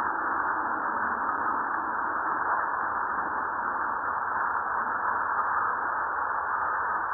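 Seismogram audio from Fuego volcano's seismometer, heard as a steady hiss of background ground noise with no explosion signal.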